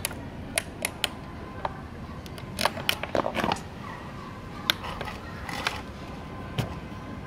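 A clutch motor's metal mounting bracket and bolts being handled and shifted against a plywood board: irregular clicks and knocks, bunched about three seconds in, with a few single knocks later.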